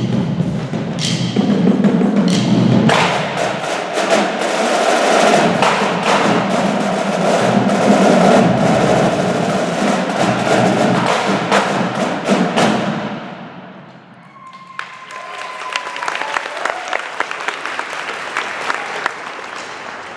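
Percussion ensemble of student drummers playing a fast, dense piece with many sharp strikes, which ends and fades out about two-thirds of the way through. Audience applause follows.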